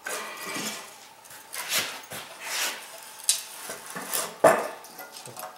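Metal tools and fittings clinking and knocking on a steel workbench as they are handled around an air compressor tank: a few scattered knocks, the sharpest about four and a half seconds in.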